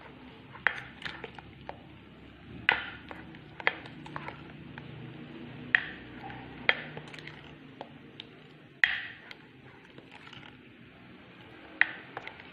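Utensil stirring batter in a glass bowl, clinking against the glass in irregular sharp taps, roughly one a second.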